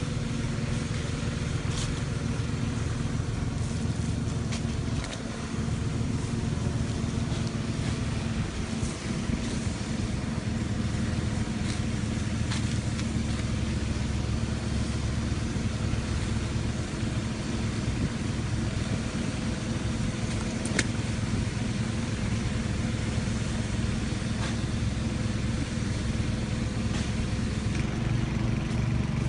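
An engine running steadily at idle, an even low hum, with a few faint clicks over it.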